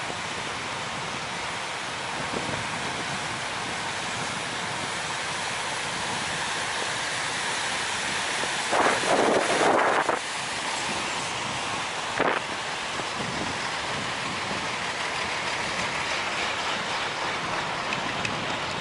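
Wind buffeting the camera microphone with a steady rushing noise. A louder surge lasts about a second, starting around nine seconds in, and a short burst follows a few seconds later.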